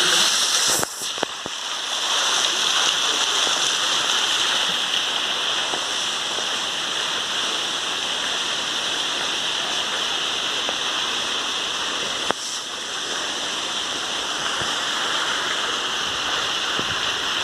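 Waterfall rushing in a steady, even roar of falling water, dipping briefly twice.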